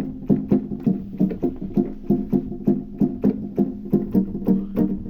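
Roland VR-09 keyboard playing a synth tone with short, plucked-sounding notes in a fast, even run of about four notes a second.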